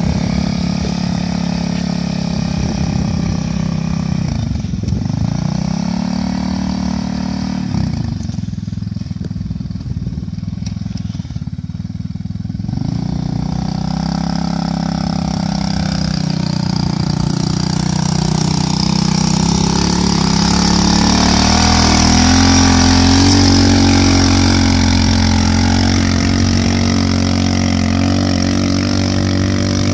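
Engine of a homemade two-wheel-drive motorcycle pulling through loose sand while carrying 110 kg of sand. The revs dip and pick up twice, then rise steadily as it accelerates away and grow loudest about three-quarters of the way through.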